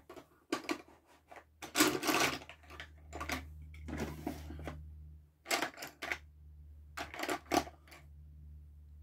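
Coloured pencils clicking and rattling against each other as they are sorted through and picked out of a set, in a string of short, irregular clicks and clatters. A faint steady low hum sits behind from about two seconds in.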